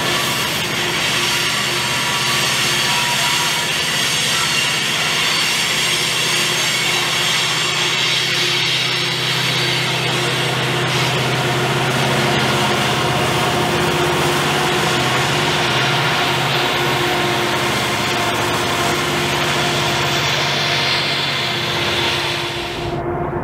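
A loaded coal train of steel hopper cars rolling past on a curve, with steady high-pitched wheel squeal over the rumble of the wheels. Mid-train BNSF SD70ACe diesel locomotives pass about halfway through, their engines working hard as they push the heavy train upgrade. The sound cuts off shortly before the end.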